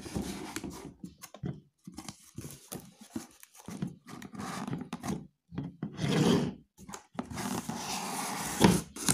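Cardboard shipping box being opened by hand: flaps and tape scraping and ripping in irregular bursts, with longer rasps about six and eight seconds in and a sharp snap near the end. Plastic wrapping rustles as the contents are touched.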